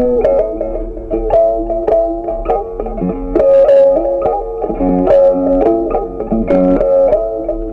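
Background instrumental music: a plucked guitar melody over a bass line, with notes changing several times a second.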